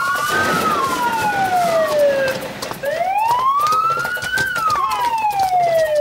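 Police car siren wailing, its pitch sweeping slowly up and down, about one full rise and fall every four seconds.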